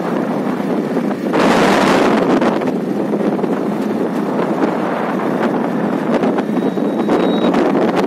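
Wind buffeting the microphone from a moving vehicle: a steady rush, with a stronger gust about a second and a half in.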